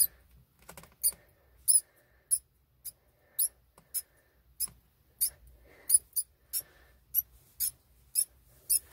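Pinky mouse squeaking: short, very high-pitched squeaks, about two a second.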